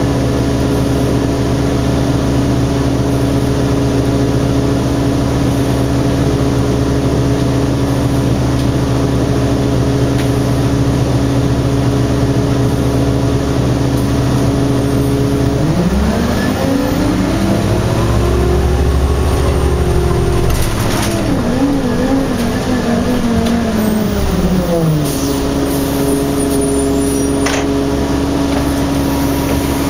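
Detroit Diesel Series 50 inline-four engine of an Orion V bus with an Allison automatic transmission, heard inside the cabin, running steadily at idle. About halfway through it revs up and holds high with a brief dip, then winds back down to idle some ten seconds later.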